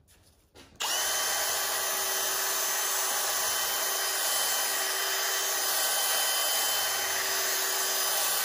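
Small cordless power tool switched on about a second in and run at a steady high speed as it cleans out the core plug bore in the engine block, shutting off near the end.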